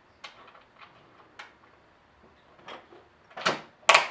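Hands working bolts and nylock nuts on a plastic (HDPE) skid plate: a few faint small clicks of hardware, then near the end a short scrape and a sharp knock against the plate.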